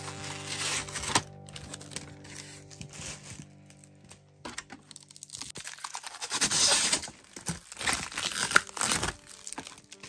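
Clear plastic protective film being pulled off a new printer's casing, crinkling and crackling, loudest in the second half. Background music with held notes plays under the first half.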